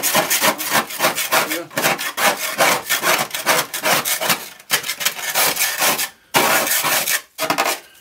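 Frost and ice being scraped by hand off the inside walls of a freezer compartment while it is being defrosted. The scraping comes in quick repeated strokes, with short pauses about six seconds in and again just after seven.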